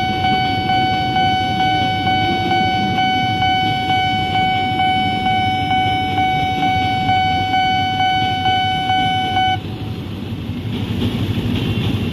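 Railway level-crossing warning alarm sounding a steady, pulsing electronic tone over the low rumble of a passing KRL electric commuter train and idling traffic. The alarm cuts off suddenly near the end as the barriers begin to lift, the sign that the crossing is clearing.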